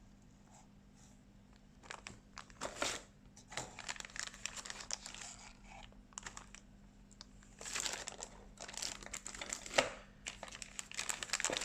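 Plastic packaging of a model kit crinkling and rustling in irregular bursts as it is handled, starting about two seconds in, with a few sharper crackles.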